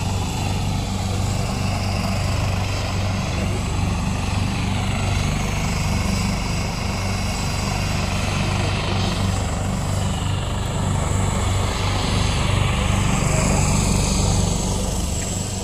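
Helicopter running on the ground with its rotor turning: a steady, continuous engine-and-rotor sound with a low hum, growing slightly louder in the last few seconds.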